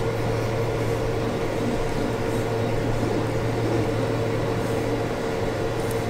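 A steady, unchanging hum: a low drone with a fainter higher tone above it, typical of a fan or electrical appliance running in the room.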